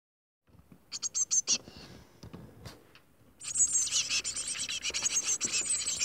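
A brood of songbird nestlings cheeping to beg for food: a few short high calls about a second in, then from about halfway a continuous chorus of rapid high-pitched cheeping.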